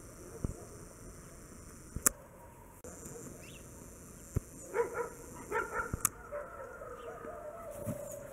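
A dog gives several short high barks about five seconds in, then a long drawn-out whine near the end, with a few sharp clicks along the way.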